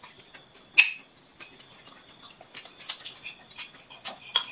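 Metal spoons clinking and scraping against plates while people eat: scattered light taps, with one sharper clink a little under a second in.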